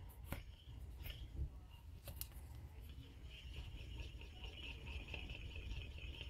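Faint metal clicks and light rubbing as the oiled steel forcing screw of an MBS Evolution cam bearing installer is threaded through its plate by hand. A few separate clicks come in the first two seconds, then a thin steady rubbing.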